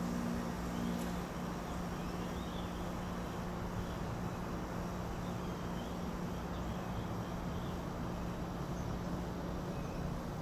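A few faint bird chirps over a steady low rumble and hum.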